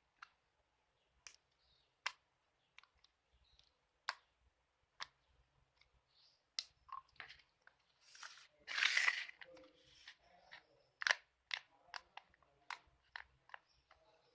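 Tofu slime being squeezed and poked by hand, giving irregular sharp clicks and pops, with a longer squishing rustle about eight seconds in, the loudest part.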